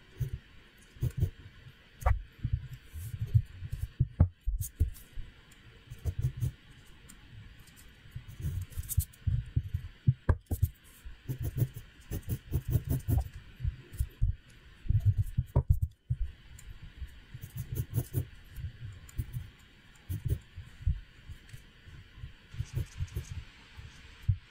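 Mechanical pencil sketching on paper, heard mainly as irregular soft low thumps from the strokes on the drawing surface, with faint scratchy ticks.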